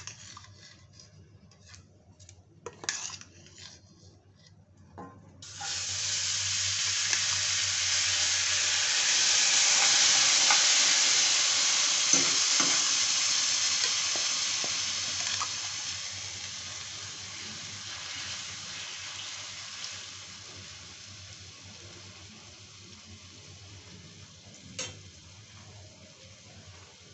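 A few clicks and knocks at the pan, then about five seconds in cooked chickpea curry (chole) goes into a hot frying pan: a sudden loud sizzle that slowly dies down over the next fifteen seconds as it is stirred with a ladle. A single clink near the end.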